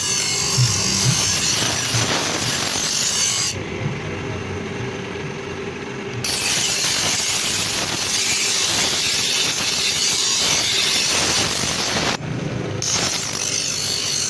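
Steel being worked by abrasion, most likely the sickle blade being shaped or sharpened: a continuous rasping scrape. Its high hiss drops out abruptly for a few seconds about three and a half seconds in, and again briefly near the end.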